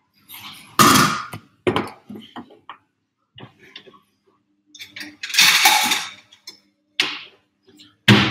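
Kitchenware being handled on a stainless steel gas stovetop: a sharp knock about a second in, a few lighter clinks, then a longer clatter of about a second midway and one more knock shortly after.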